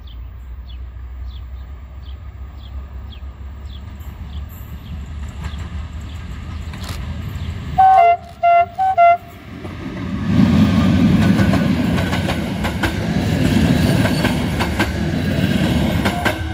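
CFR Class 41 electric locomotive hauling a passenger train as it approaches, sounding its horn in three short blasts about eight seconds in. From about ten seconds it runs past close by, loud, with the wheels clacking over the rails.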